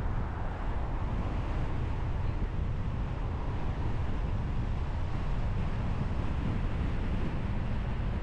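A car driving along a city street: a steady low rumble of tyre and road noise, with wind buffeting the microphone.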